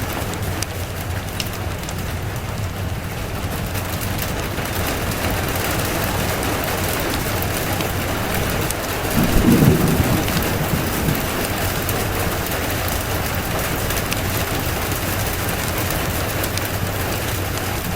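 Steady rain falling, with a short low rumble of thunder about halfway through. Sparse fine crackles of a wood fire run underneath.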